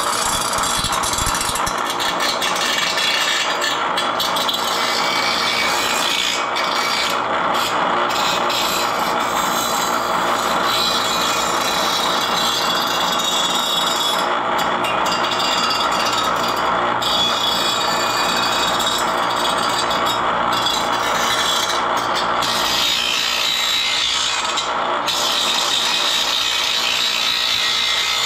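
Small bench grinder running, its abrasive wheel grinding steadily on a piece of steel held against it. The owner says the grinder has a bad motor.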